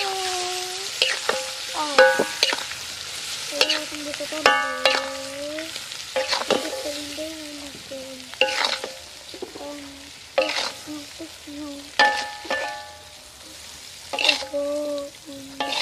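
A metal spatula stirring and scraping fish in spiced sauce in a frying pan over a sizzling fire, with sharp strikes on the pan every second or two, several leaving a brief ringing tone.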